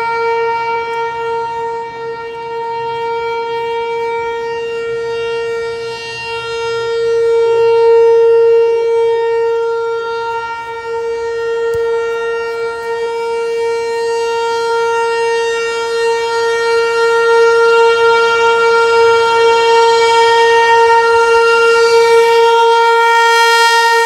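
ASC T-128 rotating outdoor warning siren sounding a steady alert tone, holding one pitch throughout. Its loudness swells and fades slowly as the rotating head turns.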